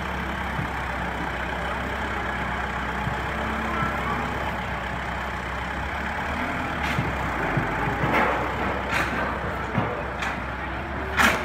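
Farm tractor engine running steadily at low speed while it tows a hay wagon loaded with a round bale. A few sharp knocks and clatters come in the second half, the loudest just before the end.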